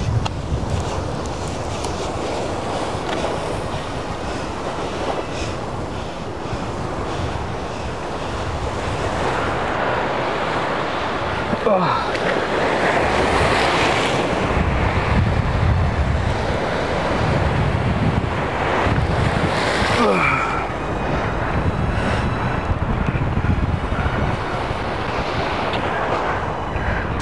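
Sea waves washing and breaking against jetty rocks, rising and falling in swells, with wind buffeting the microphone.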